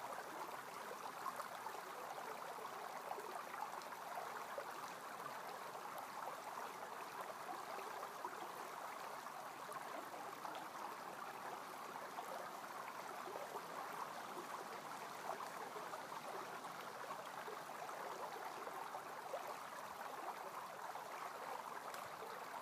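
Low, steady rush of running creek water: an even hiss with no other sound standing out.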